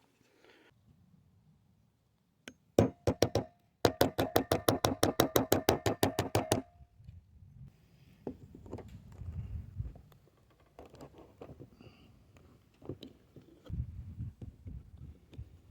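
Small hammer head of a multi-tool striking metal. There are a few taps, then a fast, even run of blows, about six a second, each with a ringing metallic tone, lasting nearly three seconds. After that come fainter scraping and handling sounds.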